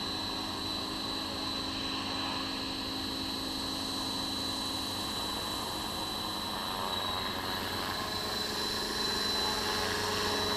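Roban EC145 scale RC helicopter running with its rotor spun up at a steady speed: a continuous rotor and motor drone with a thin high whine over it, getting a little louder near the end.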